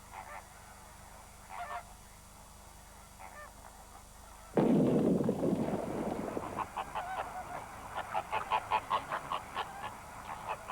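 Greater flamingos giving goose-like honks: a few scattered calls, then a sudden loud rush of noise about four and a half seconds in, followed by a quick run of honks from many birds.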